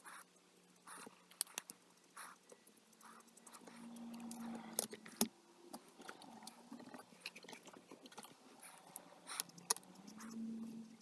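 Copic alcohol markers being used and handled: quiet strokes of the nib on the marker paper, with several sharp plastic clicks as the markers and their caps are handled.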